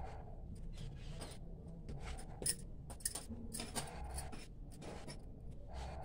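Palms rolling a log of dough back and forth on a stone counter: soft rubbing strokes with scattered light clicks, two sharper clicks near the middle.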